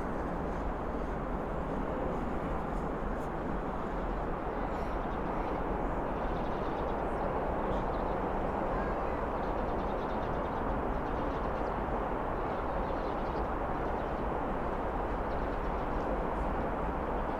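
Steady rumble of heavy traffic from a busy city avenue, an even, unbroken roar with no single vehicle standing out.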